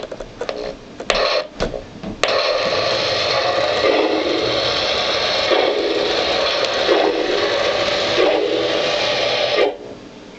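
Lionel model steam locomotive running on the layout's track, a steady hissing clatter of wheels and motor. It cuts in and out with a few sharp clicks in the first two seconds, then runs steadily and drops away sharply about a second before the end.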